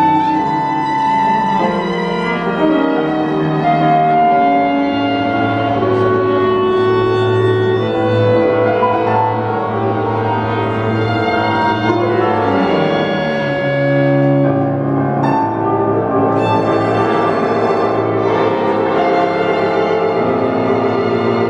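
A violin, cello, clarinet and piano quartet playing contemporary chamber music, mostly long held notes that overlap; a low cello note is held through the middle.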